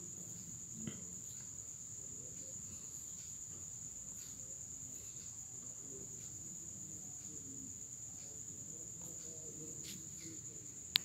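Steady high-pitched insect trill, like a cricket, held on one pitch, over faint low background noise, with a faint tap about a second in.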